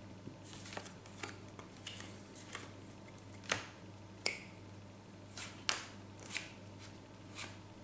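Playing cards handled in the hands: irregular light clicks and snaps as cards are pushed off a small packet, turned over and exchanged, with a few sharper snaps in the middle.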